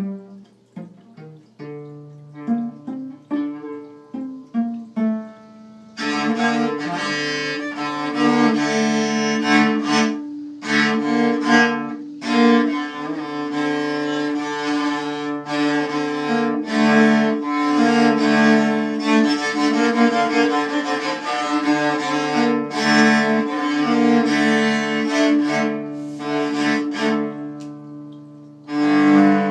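Instrumental music with bowed string instruments: sparse separate notes for about the first six seconds, then a fuller, sustained string texture that breaks off briefly a couple of times.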